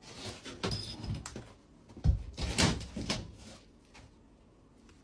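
Loose 9mm plywood wet-room base being pulled up and handled: a run of wooden knocks and scrapes, the loudest about two seconds in, dying away near the end.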